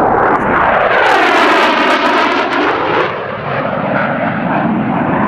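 McDonnell Douglas AV-8B Harrier II jet, its Rolls-Royce Pegasus turbofan running loud as the aircraft passes by, with a sweeping, phasing whoosh through the middle of the pass.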